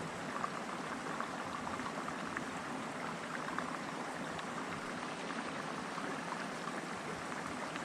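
River water running steadily, a continuous trickling with faint little pops and ticks through it.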